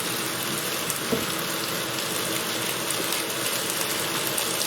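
Chicken breast pieces sizzling steadily as they fry in hot oil in a pan.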